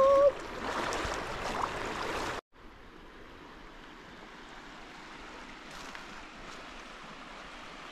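Buffalo River running over a shallow gravel and cobble bed, close and fairly loud for about the first two seconds. After a sudden break, a steady, softer rush of the river flowing past its gravel bank follows.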